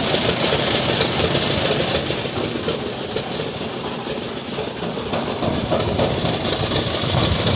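Heavy concrete-pouring machinery running steadily, a loud continuous mechanical rumble with clatter.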